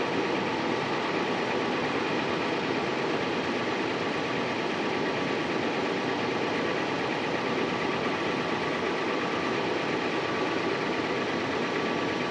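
2016 Toyota 4Runner's 4.0-litre V6 idling steadily with a loud knocking noise that sounds like a diesel; the owner does not know its cause.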